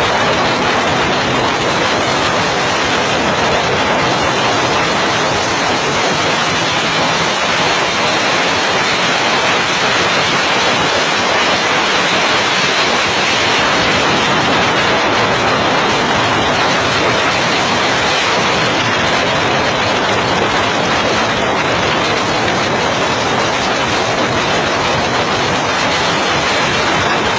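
Narrow wooden boat running at high speed: a loud, steady rush of engine, wind and water spray.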